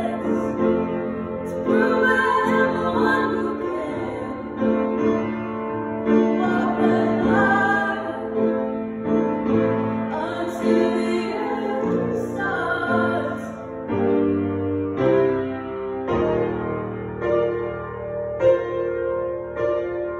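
A female voice singing a slow ballad over upright piano chords. The singing stops about two-thirds of the way through, leaving the piano playing chords alone.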